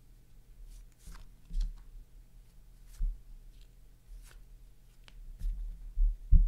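Playing cards being handled and dealt one by one onto a table: scattered soft card flicks and slaps, with dull thumps about a second and a half in, three seconds in, and twice near the end, the last one the loudest.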